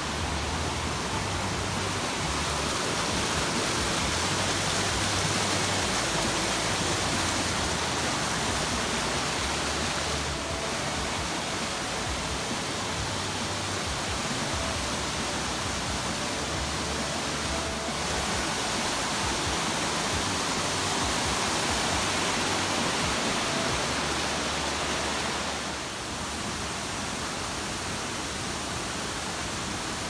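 Rushing water of a mountain stream and its small waterfalls, a steady hiss that dips slightly near the end.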